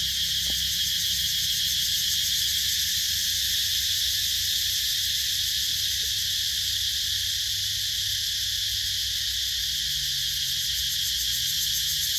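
Daytime insect chorus: a steady high-pitched drone with a fast, even pulse.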